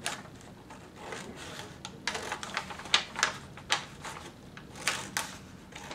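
Scissors cutting through pattern paper: a series of uneven, crisp snips, several close together in the middle and another pair near the end.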